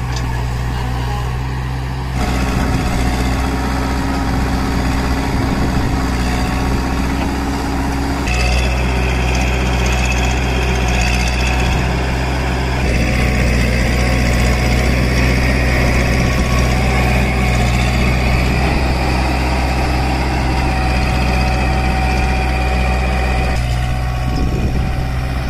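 Diesel engines of a JCB 3DX backhoe loader and a Kubota MU4501 tractor running steadily, with the sound shifting abruptly about 2, 8, 13 and 24 seconds in.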